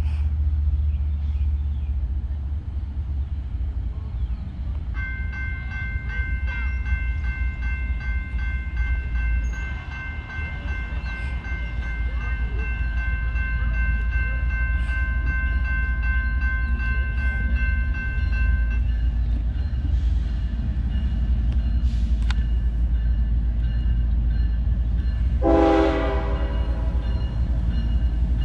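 Train horn sounding one long, steady blast of about fourteen seconds over a heavy low rumble. Near the end there is a second, brief lower-pitched tone.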